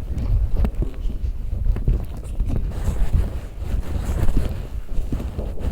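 Wind buffeting the microphone: an uneven low rumble, with scattered light knocks.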